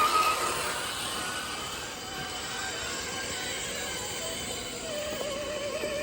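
Small electric motor and gears of a 1/10-scale RC crawler whining, the pitch wavering up and down with the throttle over a noisy background.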